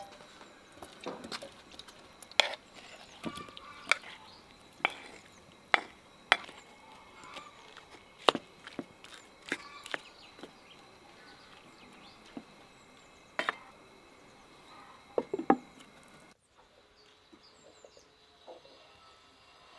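A wooden spoon stirring sliced peaches in a black frying pan, knocking sharply against the pan at irregular moments about once a second. The knocking stops about three-quarters of the way through.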